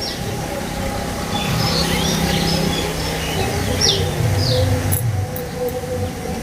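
Small birds chirping: a handful of short, falling chirps over a steady low rumble.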